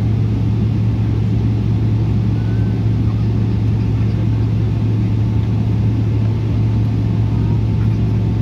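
Steady low cabin drone inside a Boeing 777-300 airliner on the ground before takeoff, from its engines and air systems at low power. A faint thin whine holds steady over the hum.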